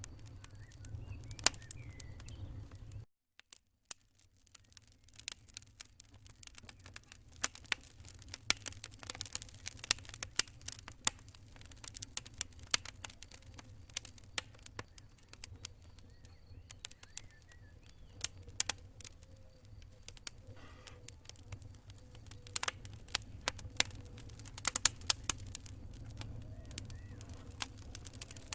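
Wood fire in a fireplace crackling: irregular sharp pops and snaps over a low, steady rumble of flames. About three seconds in the sound cuts out almost to silence for about a second, then the crackling resumes.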